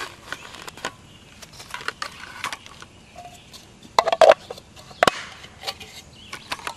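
Plastic bags holding steel wool being handled and packed into a flashlight body: crinkling and rustling with scattered clicks, a louder cluster about four seconds in and a sharp knock about a second later.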